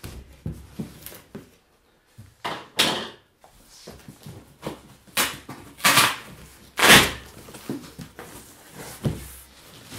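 A cardboard shipping box being opened by hand: a series of short ripping and scraping sounds as packing tape and flaps are torn open, the loudest about seven seconds in, with small rustles and taps between.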